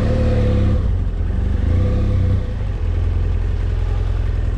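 BMW F800GS motorcycle's parallel-twin engine running at low speed as the bike rolls slowly along, with small changes in throttle.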